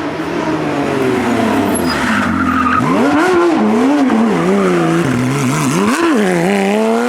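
Porsche 997 GT3's flat-six racing engine: revs fall for the first few seconds as the car slows, then rise and drop several times in quick succession, and climb steadily again near the end.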